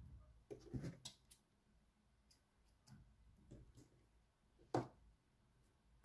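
Quiet handling of yarn and a pair of scissors: a scatter of light clicks and rustles, with one sharper scissors click about three-quarters of the way through.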